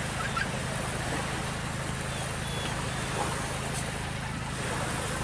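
A steady, low engine drone, with faint far-off voices over it.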